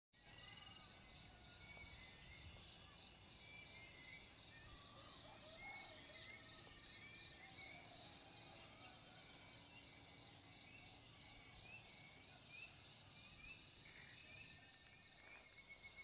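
Faint night chorus of insects and birds: a steady pulsing insect buzz with short chirping calls repeated over it, and a steady trill starting near the end.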